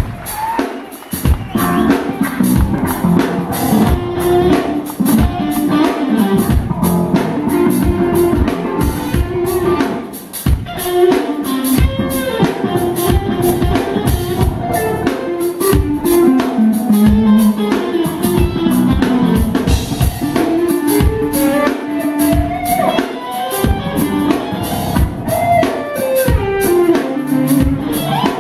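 Live instrumental rock band: an electric guitar plays a lead melody with pitch bends over a second electric guitar and a drum kit.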